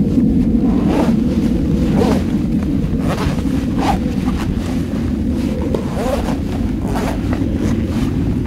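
Steady wind rumble on the microphone, with scattered rustles and short zipper pulls as an Aerostich R3 one-piece riding suit is zipped up, front and legs.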